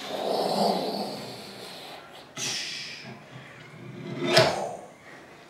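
Mouth-made spaceship sound effects: breathy whooshing and hissing noises, then a sharp knock about four seconds in as the toy spaceship on its stand is set down on a tabletop.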